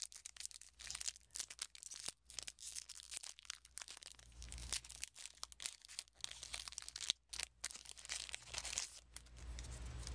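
A Yu-Gi-Oh! booster pack wrapper being torn open and crinkled by hand: a long run of irregular crackles and rips, easing off near the end as the cards come out.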